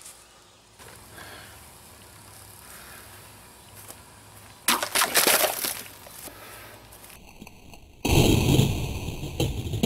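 Large knife blades hacking into water-filled plastic bottles: a sharp strike with splashing a little before halfway, then a louder, longer strike and splash with a deep rumble near the end.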